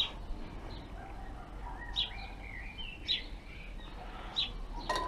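Wild birds chirping, short high calls about once a second, with a brief warbling song phrase about two seconds in. A sharp click with a short ring near the end.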